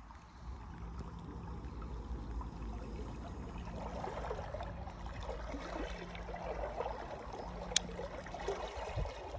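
Shallow river water gurgling and trickling, getting busier about four seconds in, over the faint low hum of a spinning reel being cranked. One sharp click comes near the end.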